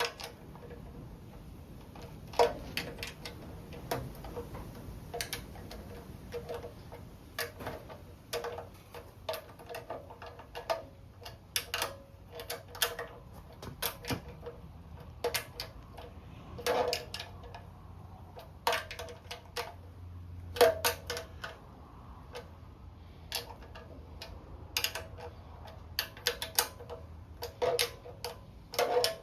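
Irregular metallic clicks and clinks of hand tools working the oil pan bolts as they are snugged down, sometimes several in quick succession.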